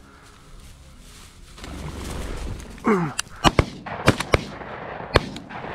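A quick volley of about five shotgun shots from more than one gun at a flushed quail, preceded by a short falling cry.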